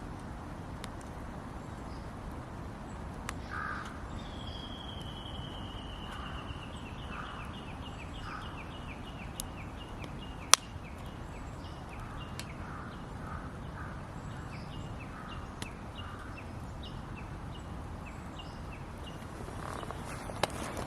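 Campfire crackling, with scattered sharp pops over a steady hiss, one loud pop about ten seconds in. Crows are cawing, and a small bird sings a falling note followed by a long run of quick repeated notes.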